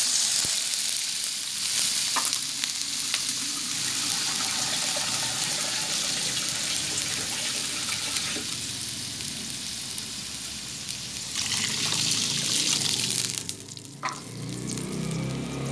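Water poured into a hot wok of sautéed minced pork, hissing and sizzling in the pan as it comes up to a simmer. The sizzle runs steadily, cuts off abruptly a little past 13 seconds in, and is followed by a single click.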